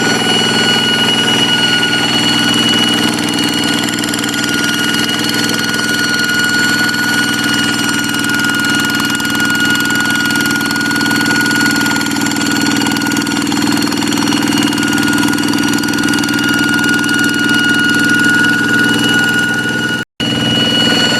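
Hand tractor's Kubota single-cylinder diesel engine running steadily, with a steady high-pitched whine ("ngiung ngiung") over the engine note. The sound drops out for an instant near the end.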